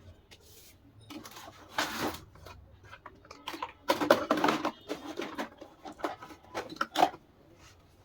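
Plastic toy dollhouse pieces and packaging being handled: a run of clicks, taps and rustles, with louder crinkling about two and four seconds in.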